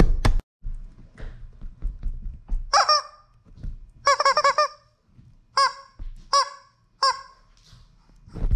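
Squeezed rubber chicken toys letting out five short honking squawks, the second a longer warbling one, with a soft thump near the end.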